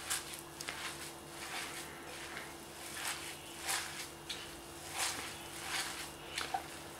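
A hand kneading and squeezing a wet mixture of minced meat and grated raw potato in a glass bowl: faint, irregular wet strokes, about one or two a second.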